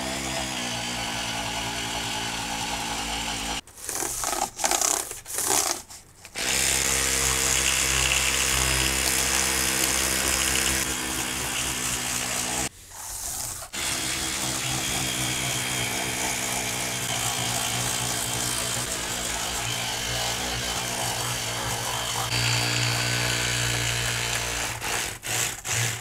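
Electric toothbrush with a round brush head buzzing steadily as it scrubs a laptop keyboard. The motor cuts out briefly several times about four to six seconds in, and for about a second near the middle. Near the end it stutters in quick pulses, the brush's timer signal that its cleaning cycle is done.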